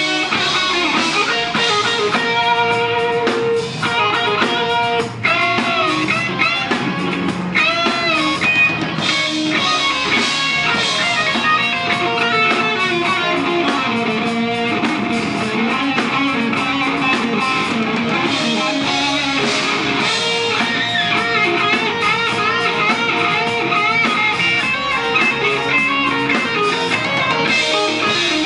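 Live rock band playing loud: electric guitars over a drum kit, with notes bending in pitch about eight seconds in.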